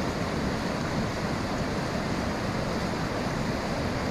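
Small mountain stream in flood, swollen into a torrent by heavy overnight rain, rushing over a weir: a steady, unbroken rush of water.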